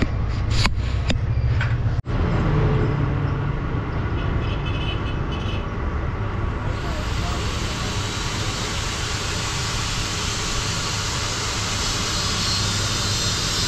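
A steady, low engine rumble from a vehicle running nearby, with a few sharp knocks in the first two seconds. About halfway through, a loud steady hiss comes in and continues.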